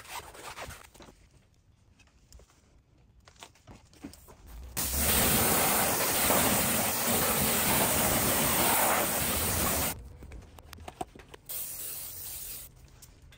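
Garden-hose spray nozzle rinsing foam off a tire and wheel: a loud, steady hiss of water starting about five seconds in and lasting about five seconds. It is framed by scattered small clicks and scrapes, and near the end comes a shorter hiss as the foam sprayer coats the tire again.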